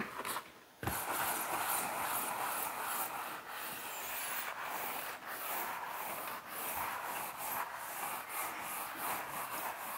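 Chalkboard eraser rubbing over a chalkboard in quick back-and-forth strokes, wiping off chalk writing. It starts about a second in, after a short click.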